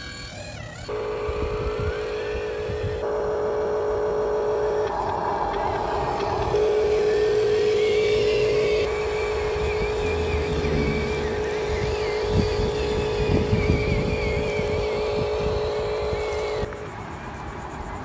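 Radio-controlled toy construction vehicle running: a steady mechanical whine starts about a second in, shifts in pitch several times and cuts off suddenly near the end.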